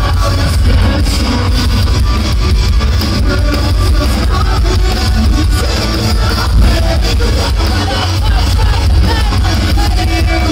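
Live metalcore band playing loud rock music with guitars and drums through a club PA, heard from inside the crowd.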